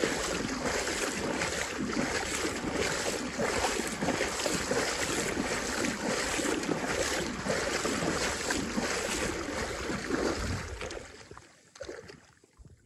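Someone wading through shin-deep lake water, the water sloshing around their legs with each stride, with wind buffeting the microphone. The sound falls away about eleven seconds in.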